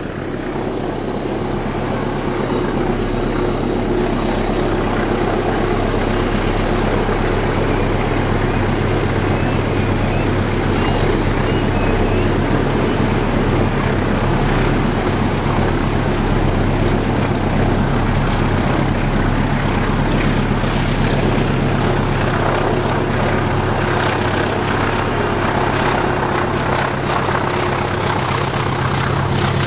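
Diesel locomotive engine running with a steady low drone, growing louder as the train comes slowly round a curve and passes close by. Over the last few seconds, a run of clicks and rattles from the passing coaches' wheels.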